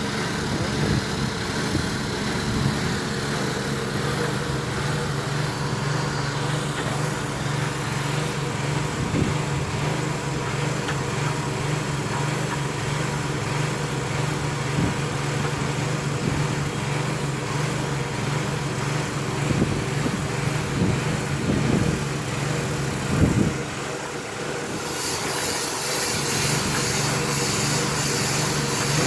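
A small engine runs steadily, supplying the air for a spinning vent-cleaning hose being worked through a dryer vent duct, with a few short knocks. Near the end a loud rushing hiss of air starts suddenly.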